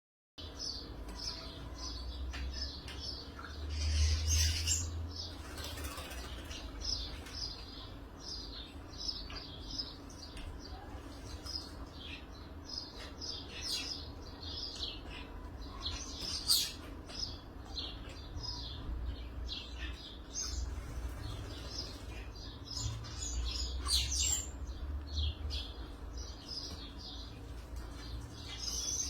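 A flock of small wild birds chirping busily and continuously, with occasional wing flutters as they bathe.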